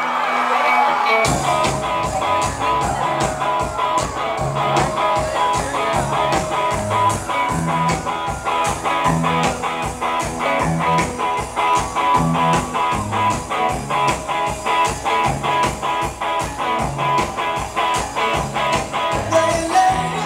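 Live rock band playing in an arena: guitars over a steady drum beat, with the drums and bass coming in about a second in.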